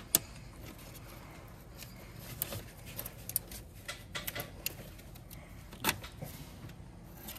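Scattered small clicks and knocks of plastic fuel line quick-connect fittings and hoses being handled and worked loose with a fuel line disconnect tool, with one sharp click just after the start.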